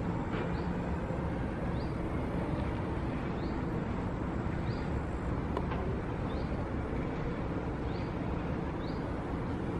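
Steady low rumbling noise of riding an open Doppelmayr fixed-grip double chairlift, with short high chirps repeating about once a second and a faint click a little past the middle.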